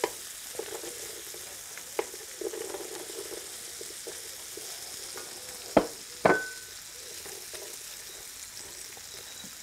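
Food sizzling and frying in a large paella pan as green beans are added and stirred in with a wooden spatula. A few sharp knocks sound, about two seconds in and twice around six seconds.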